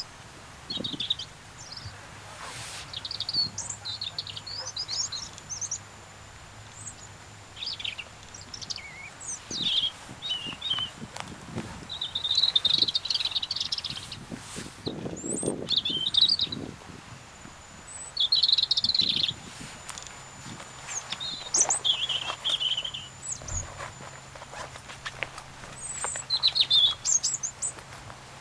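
European robin singing: a string of short, varied, high warbling phrases with brief pauses between them.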